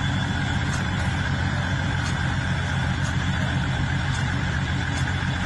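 Heavy tow truck's engine running steadily under load while its boom and cable pull an overturned tanker truck upright.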